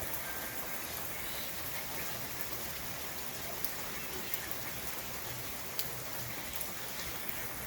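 Steady rain falling, with scattered sharper drops ticking now and then.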